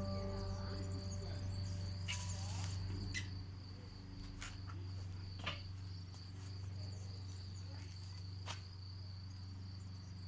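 Last notes of a Taopan Mini ringing out and fading over about the first second and a half, a low tone lingering underneath. A steady high-pitched trill runs throughout, with a few faint clicks.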